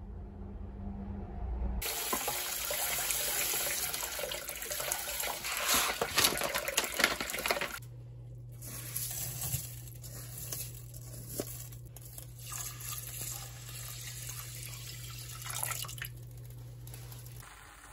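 Water running and splashing, loudest for the first several seconds, then poured in a stream into a stainless steel pot of soaking millet. A steady low hum joins about eight seconds in.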